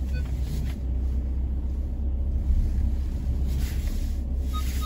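Car idling while parked, heard from inside the cabin as a steady low rumble. Near the end the car's electronic warning chime starts beeping quickly.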